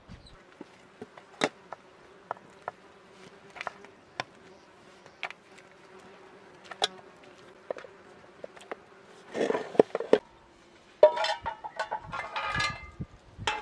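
A flying insect buzzing steadily, with scattered light clicks and knocks of an aluminium pot and utensils being handled, and a louder clatter near the end.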